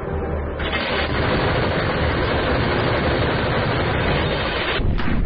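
Quad minigun mount firing one long unbroken burst, its rotary barrels turning out rounds so fast that the shots merge into a continuous buzzing roar. The burst begins about half a second in and ends just before the end.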